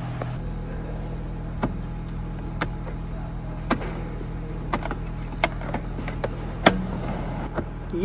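Plastic clicks and knocks from a baby car seat's recline mechanism and shell as it is tilted back into the newborn recline position, about eight separate clicks with the loudest near the end, over a steady low hum.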